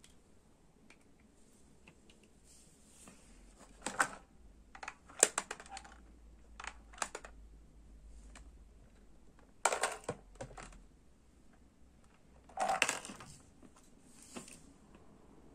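Plastic clicks and rattles from a toy lantern being handled and its dial turned, in a handful of short bursts.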